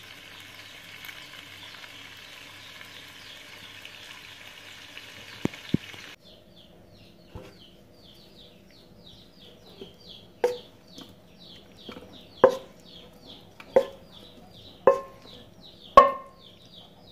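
Goat meat, green pepper and onion sizzling as they are stir-fried in a pan with a wooden spatula, with two sharp clicks about five seconds in. About six seconds in the sizzle cuts off, and background music with quick, regular high chirps takes over, joined by sharp wooden knocks every second or so that grow louder toward the end.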